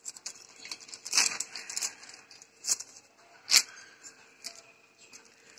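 Polythene sheet crinkling and rustling as a stainless-steel dabara is pressed down on it to flatten balls of thattai dough, with a few sharp clicks.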